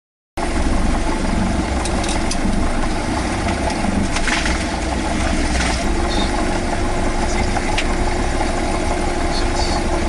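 Cessna 172 Skyhawk seaplane's single piston engine and propeller running steadily, with a low hum and a held tone. The sound cuts in suddenly about half a second in.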